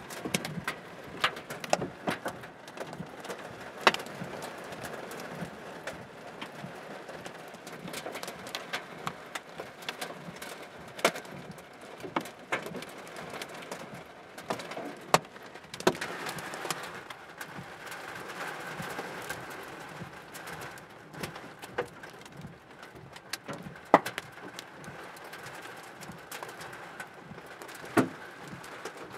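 Hailstones striking a car's roof and windshield, heard from inside the car: irregular hard knocks of different strengths over a steady rain-like hiss, with a few much louder hits.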